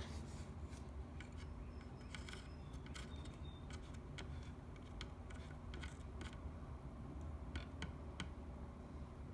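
Scattered light clicks and taps of small tools and parts being handled on a repair bench, over a steady low hum.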